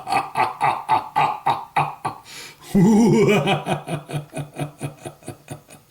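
A man's mad-scientist laugh: a long run of quick "ha" bursts, about five a second, swelling into a louder drawn-out peal about three seconds in and tapering off near the end.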